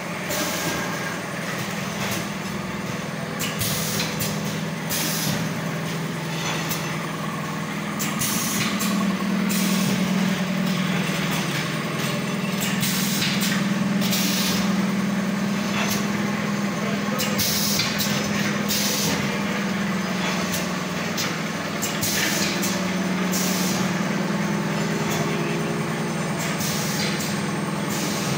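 Automatic auger filler machine with a screw feeder running, a steady motor hum overlaid by short, sharp hisses that recur every second or two.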